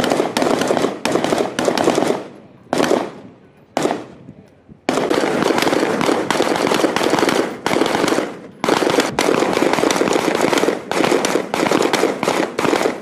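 Rapid, overlapping gunfire from several HK416-pattern rifles firing strings of shots on a ship's deck. The runs last a second or more each, with a short lull before the midpoint and then a long unbroken run.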